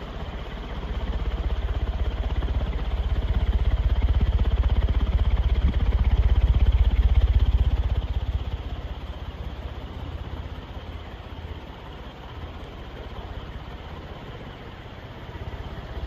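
56-inch Banvil Envirofan Silverline industrial ceiling fan running at high speed. Its blades push a strong breeze that buffets the microphone as a fluttering low rumble, louder in the first half and easing off about halfway through.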